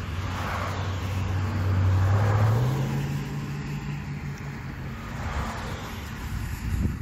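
Road traffic passing close by: several vehicles go past, the loudest about two seconds in, over a low engine hum that steps up in pitch partway through.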